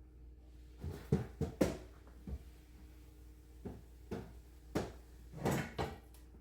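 Irregular knocks and clunks of kitchen items being handled and set down, about ten in all, some in quick pairs, over a faint steady hum.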